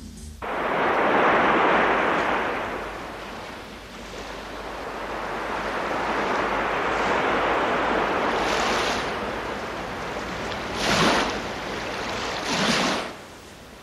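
Sea surf: waves washing in and breaking on the shore in rising and falling swells, with two sharper crashes near the end. It cuts off suddenly just before the end.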